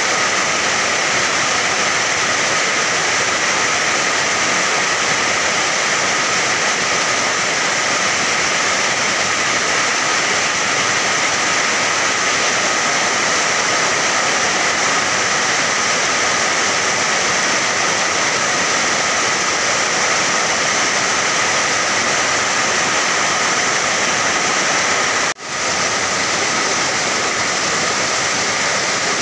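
Steady rain, a dense even hiss of water, with a momentary dip in the sound a few seconds before the end.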